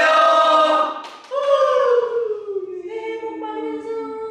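A group of young men saying the Korean New Year greeting "saehae bok mani badeuseyo" together in chorus, the last syllable drawn out in one long, slowly falling tone.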